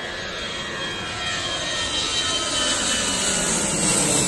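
Airbus A320-214's CFM56 turbofan engines at takeoff thrust as the jet climbs out directly overhead. A jet roar grows steadily louder, with engine whine tones sliding down in pitch and hiss building high up toward the end.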